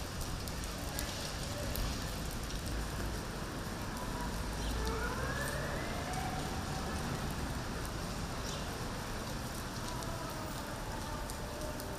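Steady rain falling, an even hiss. A faint rising tone comes through about five seconds in.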